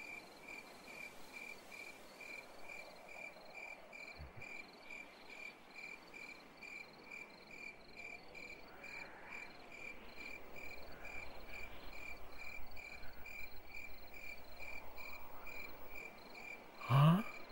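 A cricket chirping in a steady, even pulse of about three or four chirps a second. A brief rising tone cuts in just before the end and is the loudest sound.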